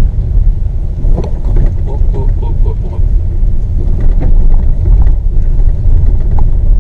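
Car driving slowly over a rough dirt trail: a steady low rumble of tyres and suspension, with scattered knocks and rattles as it rolls over bumps.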